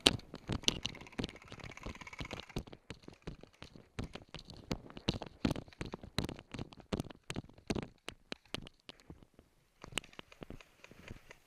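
Irregular knocks, scuffs and clicks of an airsoft player moving on a dirt path with gear jostling close to a head-mounted camera, several a second. The clicks thin out after about nine seconds.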